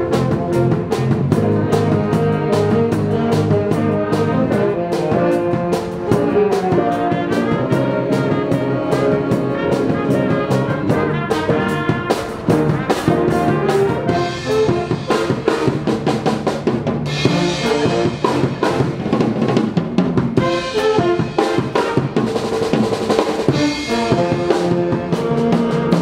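A youth jazz band playing live: brass and trombones over a drum kit, with guitar in the rhythm section. The drums come forward in the second half, with many sharp hits and cymbal wash.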